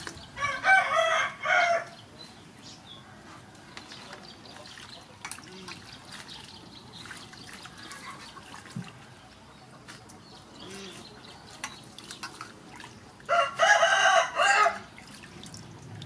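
A rooster crowing twice, once about a second in and again near the end, each a broken call of about a second and a half. Between the crows, soft splashing of hands washing leafy vegetables in a steel bowl of water.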